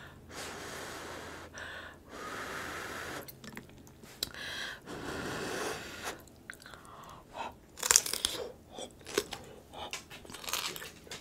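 Close-miked chewing of raw cucumber dipped in butter sauce. A few longer breathy mouth sounds come in the first half, then crisp crunches cluster in the second half.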